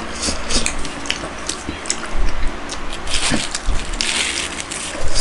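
Close-miked eating sounds: wet chewing and mouth clicks, with a hissing slurp of soup from a spoon about four seconds in.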